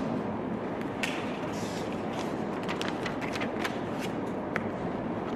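Steady room noise with scattered light clicks and ticks, several close together in the middle, and one short high blip near the end.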